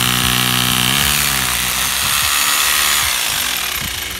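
Corded electric drill running with its bit pressed into a concrete roof: a steady motor whine that dips and picks up speed about a second in, then a rougher grinding as the bit works, easing off toward the end.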